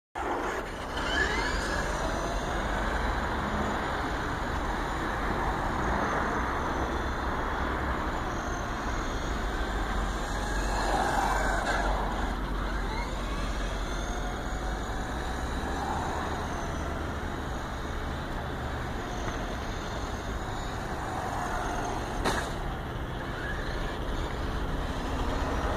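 Steady rushing background noise, with the faint motor whine of a radio-controlled toy car rising and falling in pitch as it speeds up and slows down, and a single sharp click about twenty-two seconds in.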